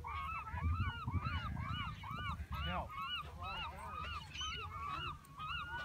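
A flock of birds calling: many short calls, each rising then falling in pitch, several a second and overlapping one another.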